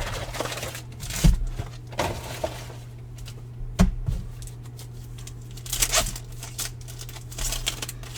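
Baseball trading cards being handled and slid through the hands, with crinkling and tearing of a foil pack wrapper and a few soft knocks, over a steady low hum.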